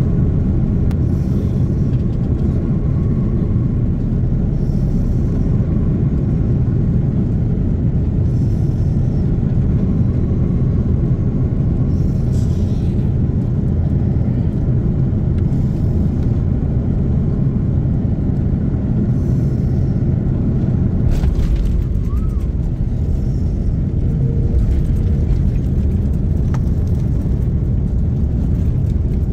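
Airliner cabin noise on approach: a steady, loud low rumble of the jet engines and airflow, heard inside the cabin. The rumble grows heavier about two-thirds of the way through.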